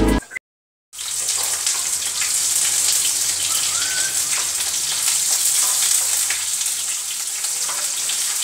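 Steady sizzle of food frying in hot oil in a kadai on a gas stove, starting about a second in.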